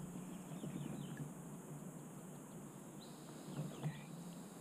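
Faint bird chirps over quiet, steady background noise, with a single soft click about four seconds in.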